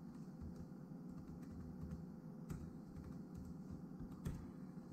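Key presses on a Lenovo ThinkPad T490s laptop keyboard: a quick, irregular string of keystrokes entering a key sequence in the firmware setup, with a couple of louder presses about halfway and near the end.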